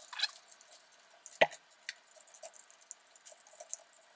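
Light plastic clicks and handling noise as motor wires are pressed into the clips of a Roomba's plastic brush module, with one sharp click about a second and a half in.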